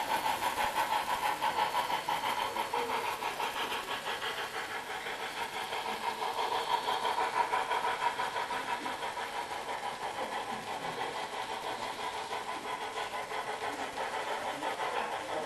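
HO scale model steam locomotive and freight train running along the track, a steady hum with a fast, even pulse.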